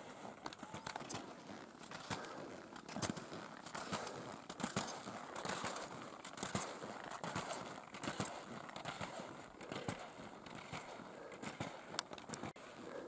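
Skis and poles crunching and scraping on snow during ski touring, in an irregular run of steps and pole plants.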